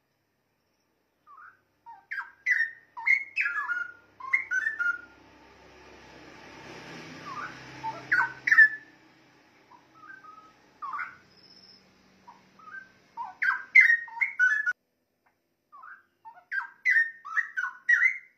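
Straw-headed bulbul (cucak rowo) singing: several bursts of rich, rapid, bubbling whistled notes that glide up and down, with short pauses between phrases. A low rushing background noise swells and fades in the middle.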